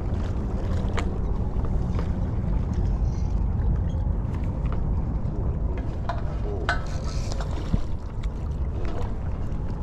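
Steady low wind rumble buffeting the microphone over open water, with a few faint light clicks.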